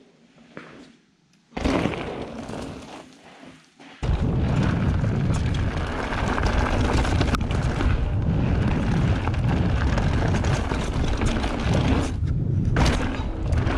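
A mountain bike rushes past close by on a dirt trail, loud at first, then fading. From about four seconds in, steady loud wind buffeting and rumble from a camera riding on the bike as it descends the dirt flow trail, with tyre noise and rattles from the trail.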